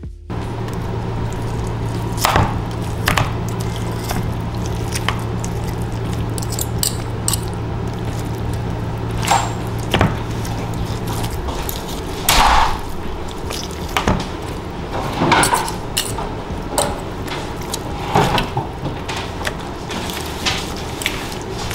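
Forks scraping and clicking against each other and the dish while shredding cooked chicken, in irregular short strokes. A steady low hum runs underneath and stops about halfway through.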